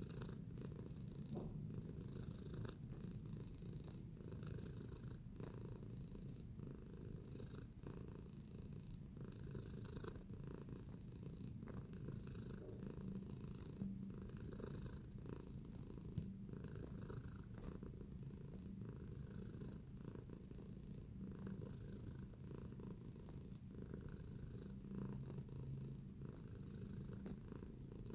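Domestic cat purring steadily, a low continuous rumble.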